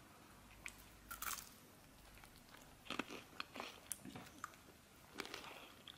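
Faint, scattered clicks and crunches of a baby chewing bread.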